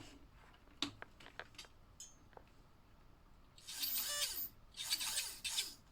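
Light clicks from plastic slot car track pieces being handled, then two short bursts of rasping, rubbing noise about four and five seconds in.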